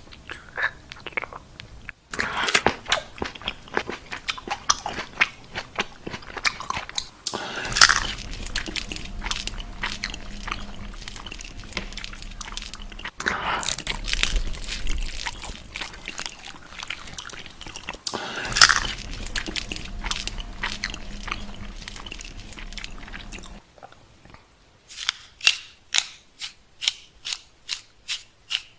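Close-miked eating: crunchy bites and wet, crackly chewing, with a few louder bites and a regular chewing rhythm of about two clicks a second near the end.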